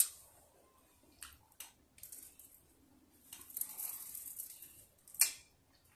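A few soft clicks and a short crinkly rustle from handling candy and its plastic container close to the microphone, ending with a sharper click.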